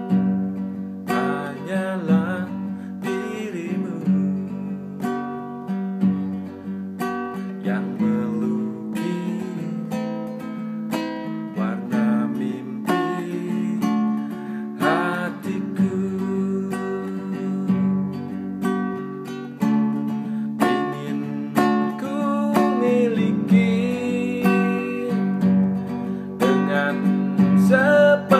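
Acoustic guitar strummed in a slow ballad rhythm, with a man singing over it at times.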